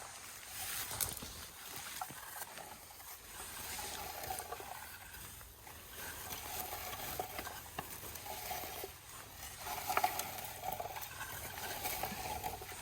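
Rustling and small snapping in forest undergrowth, many light clicks over a continuous hiss: leaves, twigs and low blueberry bushes being brushed and handled.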